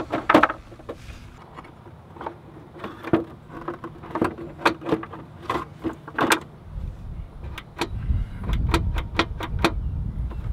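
Scattered clicks and knocks of hard plastic scooter bodywork, the horn cover and legshield of a Vespa LX, being handled and worked by hand, turning into a quick run of sharp clicks near the end over a low rumble.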